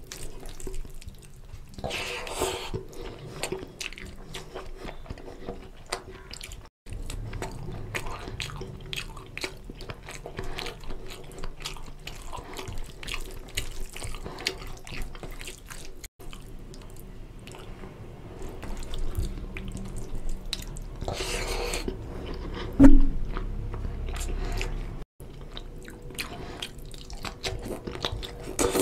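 Oily curry and rice being squished and mixed by hand on a steel plate and eaten close to the microphone: wet squelching, smacking and chewing made of many small sticky clicks. One brief loud knock stands out about two-thirds of the way through.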